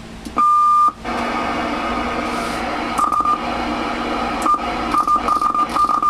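A single half-second beep from the CB/ten-meter transceiver, then its speaker plays channel receive audio: steady static with held whistling tones and a broken run of short beeps at the same pitch.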